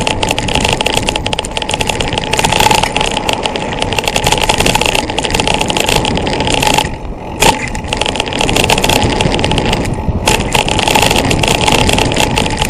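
Wind rushing over the camera's microphone and the bike rattling and clattering over a dirt trail during a fast mountain-bike downhill run. The noise drops briefly a little past halfway, with a sharp knock right after, and dips again about ten seconds in.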